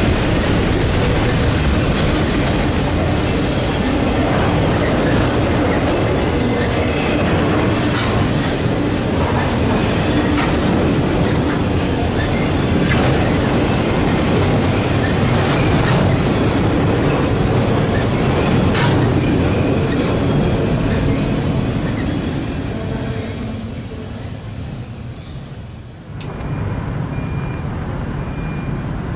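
Freight train of autorack cars rolling past, a steady rumble of wheels on rail with scattered clicks and thin high squeals. It fades as the last car goes by, then cuts abruptly to a quieter steady rumble near the end.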